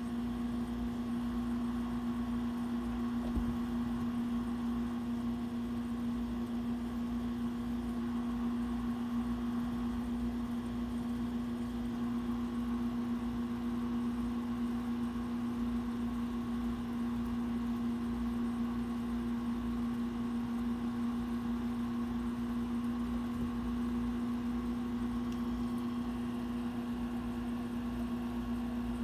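Steady mechanical hum with a constant low tone, from an appliance or motor running in the room, with one faint knock about three seconds in.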